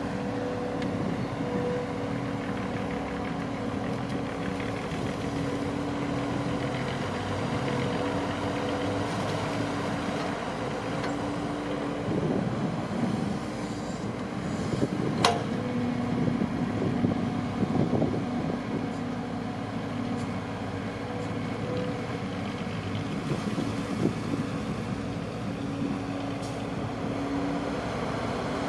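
Engine of a farm machine for rice harvesting running steadily under load, with one sharp click about halfway through.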